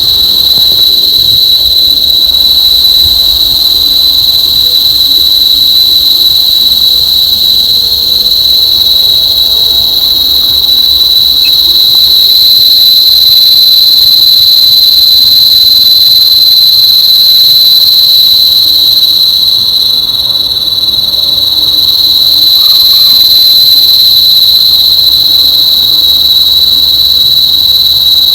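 Insects calling in a continuous, loud, high-pitched drone that holds one steady pitch, easing briefly about twenty seconds in.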